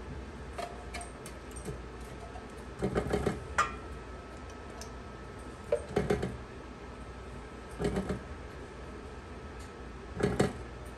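Silicone spatula scraping thick strawberry pie filling out of a tin can into a steel mixing bowl: a handful of short scrapes and light clinks of can and spatula against the bowl, a second or two apart.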